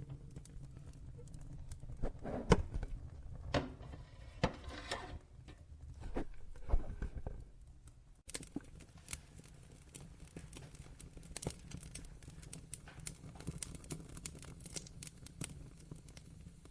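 Wood fire crackling in a fireplace: scattered sharp pops and snaps over a low rumble, with a few loud snaps in the first half and a short hiss in the middle. About eight seconds in the sound drops away for a moment, then comes back as a denser run of small crackles.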